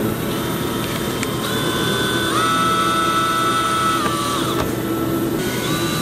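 DeWalt 20V cordless drill running and driving a self-tapping screw, its motor whine holding steady pitches and shifting up or down several times as the trigger is eased.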